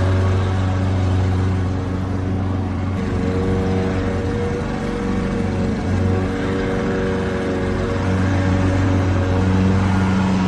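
Lawnmower engine running steadily, an even hum that wavers only a little in pitch and level.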